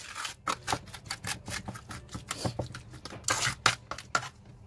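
A spoon stirring a wet onion-and-garlic marinade in a stainless steel bowl, with quick, irregular clinks and scrapes against the metal.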